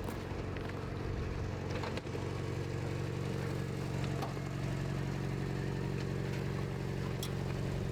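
Vehicle engine idling steadily, with a few faint ticks over it.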